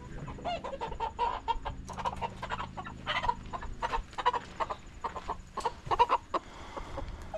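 Chickens clucking and squawking in a rapid stream of short calls, the disturbed noise of birds being caught and handled off the roost.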